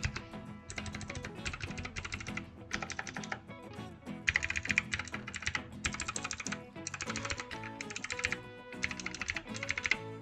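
Typing on a NUBWO X68 Krueger 65% keyboard with clicky blue switches and plastic keycaps, in quick bursts of keystrokes with short pauses between them. Background music plays underneath.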